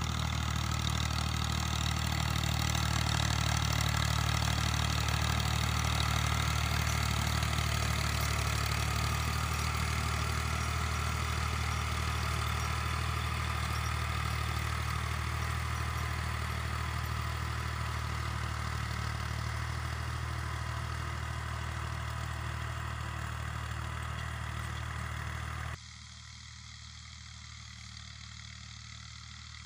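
Al Ghazi 65 HP tractor's diesel engine running steadily under load while pulling a rotavator through dry soil. The sound drops suddenly near the end, with the tractor then farther off.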